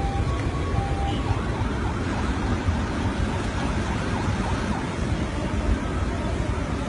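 Muddy flash-flood torrent rushing through a riverbed: a steady, loud rush of water. Within the first second or so, a two-note tone alternates briefly, like a distant siren or horn.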